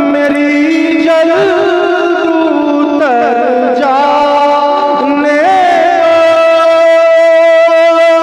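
Solo voice singing in a melismatic devotional style. It holds long notes with ornamented wavering and glides, stepping down in pitch about three seconds in and back up about five and a half seconds in.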